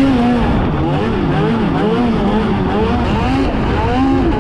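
Snowmobile engine running hard, its revs climbing and dropping again and again as the throttle is worked, over a steady rush of noise.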